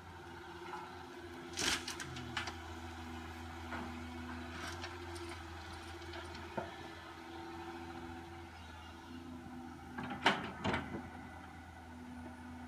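Caterpillar hydraulic excavator's diesel engine running steadily while it digs soil and loads it into a dump truck, with sharp clanks and knocks from the bucket and boom about two seconds in and again, loudest, about ten seconds in.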